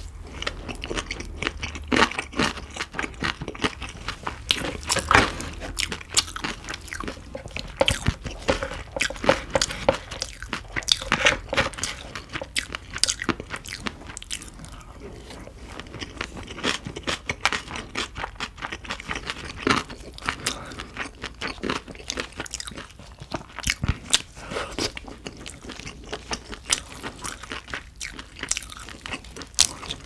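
Close-miked eating of crab: shells cracking and crunching, with chewing and wet mouth sounds, many sharp clicks in quick succession.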